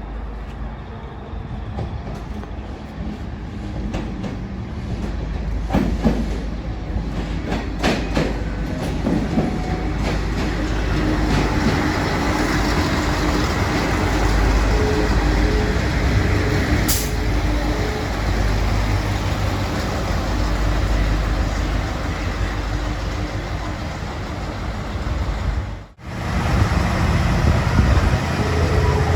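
Train running through the station, growing louder over the first few seconds, with sharp clicks of wheels over rail joints and a steady rumble and hum. The sound cuts out abruptly for a moment near the end.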